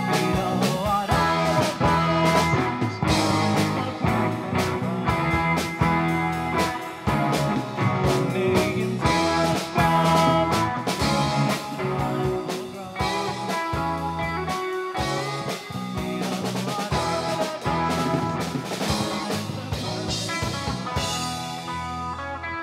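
Live rock band playing with electric guitars, bass guitar and drum kit.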